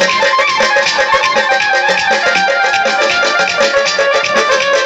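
Instrumental meykhana backing music with a quick, steady beat and a melody line, playing loudly between recited verses.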